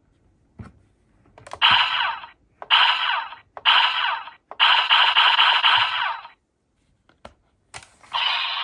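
Plastic clicks from a toy's buttons, then four short electronic sound effects from the Kamen Rider Gotchard DX Chemy summoner toy's small built-in speaker, the fourth the longest. Two more clicks follow before another sound effect starts near the end.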